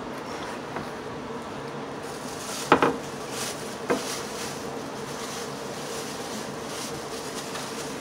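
Table-top handling noises of a person eating fried chicken from cardboard takeout boxes: two sharp knocks, a little under three seconds and about four seconds in, and faint scattered rustles, over a steady background hum.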